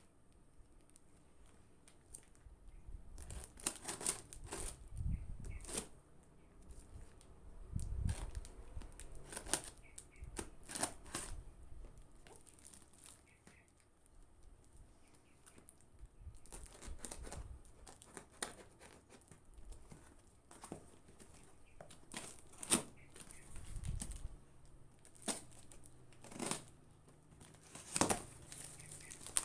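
Parcel packaging being torn open and crinkled by hand: irregular rustles and rips with sharp clicks and a few light knocks.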